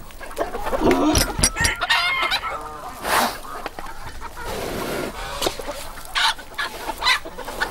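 Farmyard chickens clucking, with other fowl calling among them in short, scattered calls.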